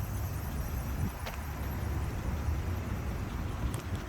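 Mitsubishi Delica van's engine idling steadily with a low, even rumble and no unusual noises.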